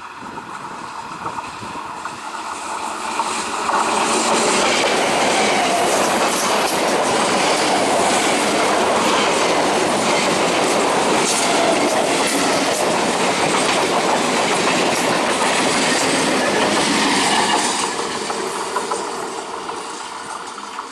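Katwa–Howrah EMU local train passing at speed. It grows louder as it comes in, its coaches run past close by with a steady clatter of wheels over the rail joints, and near the end it fades as it moves away.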